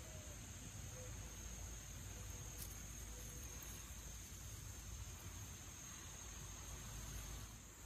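Steady high-pitched drone of insects, unbroken, over a faint hiss, with a single faint click about two and a half seconds in.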